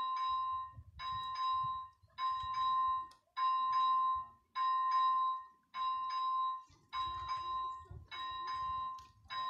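ZV-01 level-crossing warning bell ringing steadily, one clear ring a little more often than once a second, signalling that a train is approaching the crossing.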